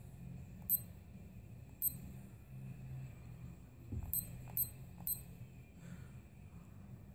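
Short high electronic beeps from a ThermoPro TP05 digital thermometer fork as its buttons are pressed, five in all at uneven gaps, over a low steady hum. A dull knock comes about four seconds in.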